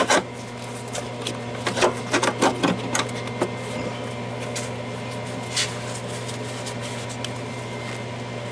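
Flux-core MIG welder arc sputtering in short crackling bursts that start and die out, a cluster about two seconds in and a last one past the middle, over a steady electrical hum. The arc won't hold, which the welder puts down to a poor ground.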